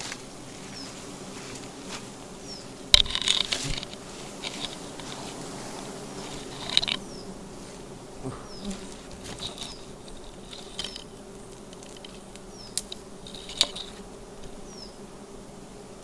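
A colony of giant honey bees (Apis dorsata) buzzing steadily around their exposed, smoked comb. Sharp rustles and knocks from the comb being swept with leaves break in a few times, the loudest about three seconds in.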